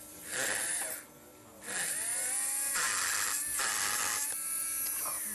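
Dental lab micromotor handpiece grinding a plastic bite splint, in two bursts: a short one, then a longer run of about two and a half seconds, its whine wavering as the bur cuts.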